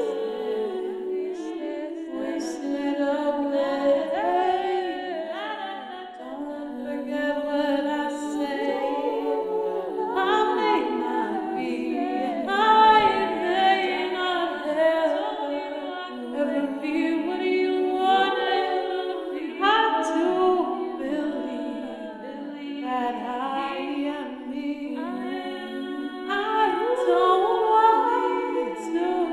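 A cappella female singing: several overlapping voices in harmony, with no instruments.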